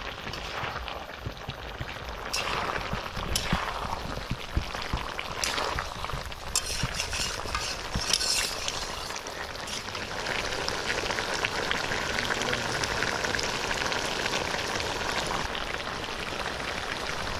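Pork curry sizzling and frying in the pan, with a steady crackle. A spatula stirs and scrapes through it now and then.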